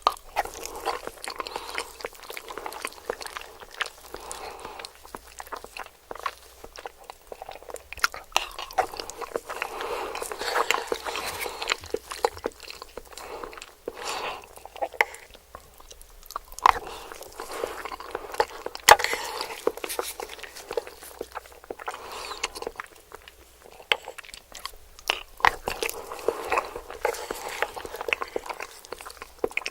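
A person biting and chewing crispy KFC fried chicken close to the microphone, with irregular crunches and wet mouth clicks throughout.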